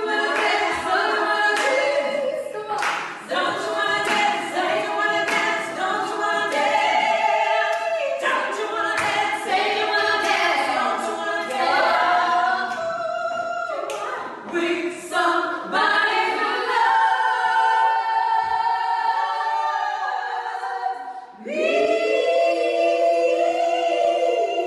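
Pop vocal performance: several voices singing together in harmony, ending in long held notes, with a short break just after the twenty-second mark before a new held chord.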